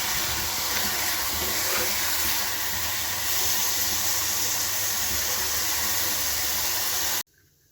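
Steady hissing of food cooking in a pan on the stove, which cuts off abruptly near the end.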